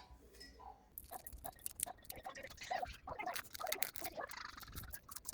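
Handling noise from working on small parts: a quick irregular run of small clicks, taps and rustling scrapes that starts about a second in.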